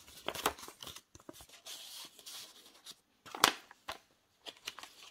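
Paper pages and card inserts of a handmade journal being handled and turned: papery rustling with light taps and clicks, and one louder tap about three and a half seconds in.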